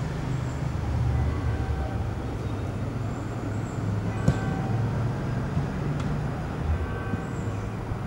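Low, steady rumble of road traffic in a city street, with a single sharp click about four seconds in.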